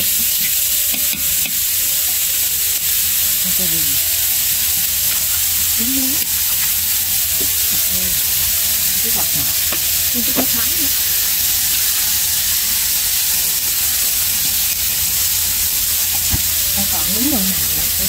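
Minced pork and garlic sizzling in a hot metal wok, a steady hiss, stirred with chopsticks at the start.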